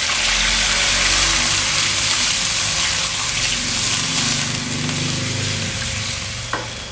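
Water poured into a hot pan of fried chili and shallot spice paste, hitting the oil with a loud steady hiss and sizzle that eases off after about six seconds as the sauce comes together.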